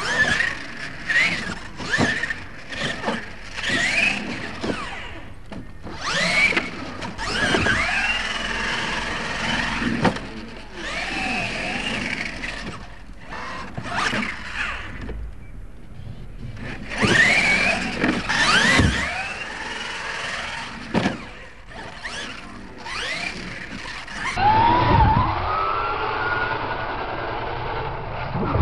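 Radio-controlled monster trucks' electric motors whining, the pitch rising and falling with the throttle, over tyres spinning on dirt, with several thuds as trucks land off ramps.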